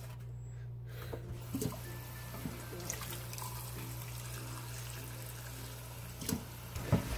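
Kitchen faucet running water into a glass measuring cup in a stainless steel sink, with a few light clinks of the metal mixer beaters against the glass.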